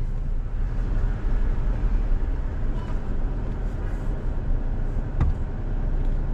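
Low steady rumble of a 3rd-gen Toyota Tacoma heard from inside the cab as it crawls along a dirt trail, with a single sharp knock about five seconds in.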